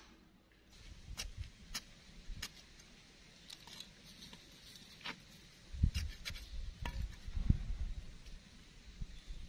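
Irregular light clicks and clinks of small hard objects being handled, with a couple of dull thumps about six and seven and a half seconds in.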